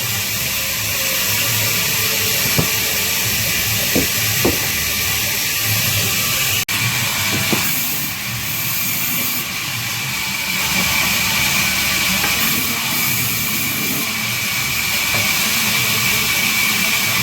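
Band saw running and cutting babool wood: a steady, hissing whir with a high ringing tone that grows stronger in the second half. A few sharp knocks come in the first few seconds, and the sound breaks off for an instant about a third of the way in.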